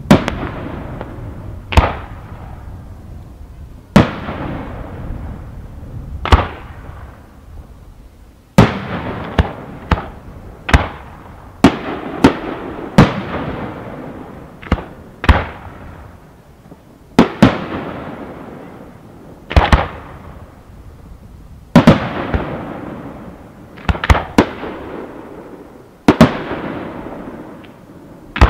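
Aerial fireworks shells bursting one after another, about twenty sharp bangs a second or two apart, each dying away in an echo.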